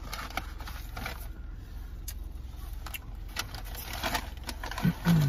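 Steady low hum of a car's engine idling, heard from inside the cabin, with scattered small clicks and rustles of people eating. A brief hummed voice sound comes just before the end.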